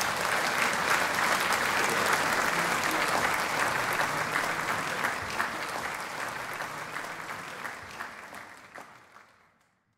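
Concert audience applauding, the clapping dense and even at first, then dying away over the last few seconds and stopping shortly before the end.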